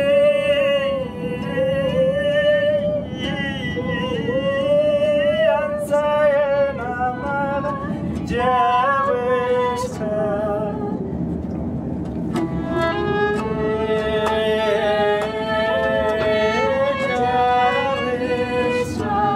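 Small acoustic group playing live: a plucked string instrument with accordion and violin. A held melody line wavers with vibrato and moves from note to note over the accompaniment.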